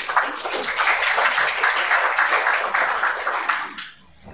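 Audience applauding, a dense patter of many hands that dies away shortly before the end.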